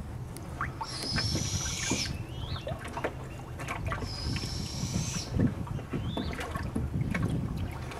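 Tour boat's motor idling with a steady low rumble. Over it come two high buzzes, each about a second long, and a few short chirps.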